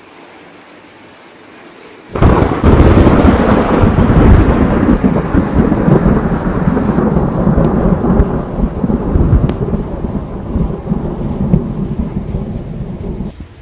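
Thunder: a sudden loud crack about two seconds in that rolls on as a deep rumble and slowly fades over about eleven seconds, dropping away near the end.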